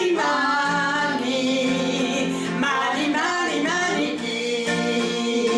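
Music: a woman singing held notes that slide in pitch, over instrumental accompaniment.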